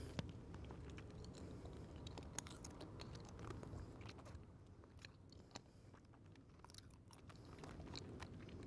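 Faint chewing and crunching of pistachios with scattered small clicks. It drops to near silence for a few seconds in the middle and returns faintly near the end.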